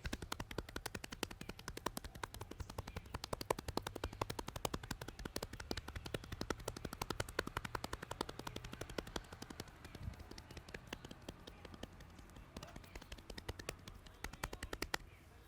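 Rapid percussive tapping on a client's head during an Indian head massage: a fast, even stream of sharp slaps that starts abruptly and stops abruptly near the end.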